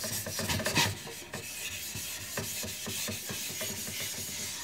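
Atoma 1200-grit diamond plate rubbed back and forth over a wet whetstone, a gritty scraping rasp, working up slurry on the stone's surface.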